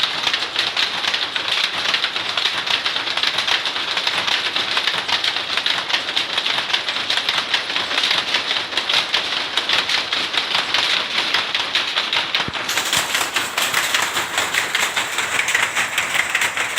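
Machine making tapis Lampung cloth running with a fast, steady clatter of many small clicks. About three-quarters of the way through the sound changes abruptly, as from a cut to another shot of the machinery.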